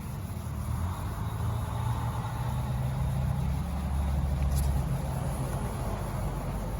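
Steady low rumble of a running vehicle engine, swelling louder between about two and five seconds in.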